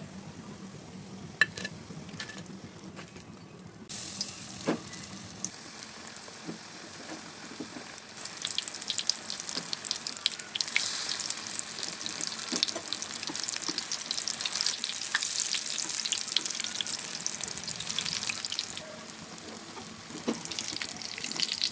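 Battered fritters deep-frying in hot oil, sizzling with a dense crackle. The sizzle starts about four seconds in, grows louder and busier a few seconds later, and eases a little near the end.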